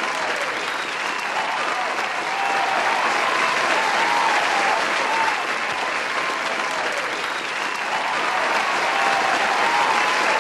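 A large crowd applauding steadily, with voices calling out over the clapping.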